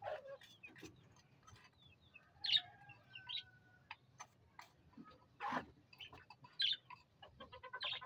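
Caged birds calling: scattered short chirps and clucks, the loudest about two and a half and five and a half seconds in, among faint light knocks and rustling.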